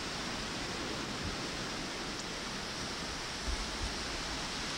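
Steady rush of wind across the camcorder microphone, with a few low buffets about three and a half seconds in.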